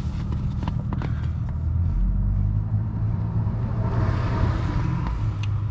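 A motor vehicle engine running steadily with a low hum, with a few small clicks and a rustle of parts being handled.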